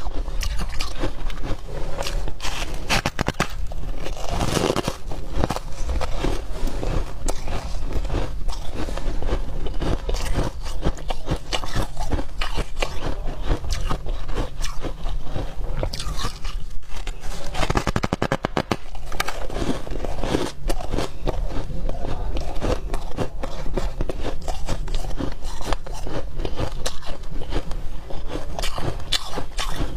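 Close-up biting and chewing of chunks of frost ice, a dense run of squeaky, crackling crunches that keeps up throughout.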